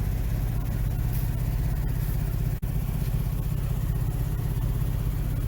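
Car engine running steadily, a low even rumble, with a brief dropout about two and a half seconds in.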